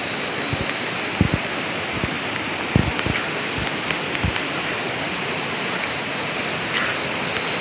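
Steady rushing of river water, with a few short low bumps about a second and three seconds in.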